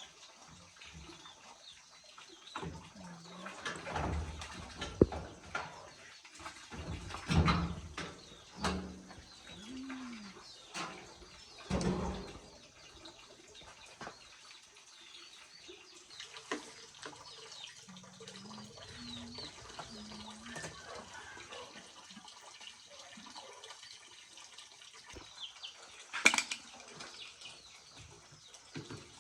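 Intermittent knocks and clattering, with a dove cooing several times and small birds chirping faintly.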